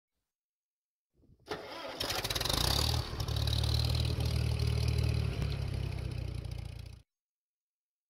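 An intro sound effect like an engine starting and then running, a steady low rumble with a hiss over it, that starts about a second and a half in and stops about seven seconds in.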